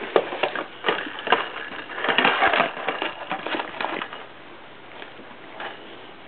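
Cat scrabbling and batting at a cardboard tissue box toy: a fast run of scratches and clicks for about four seconds, densest in the middle, then it goes quiet.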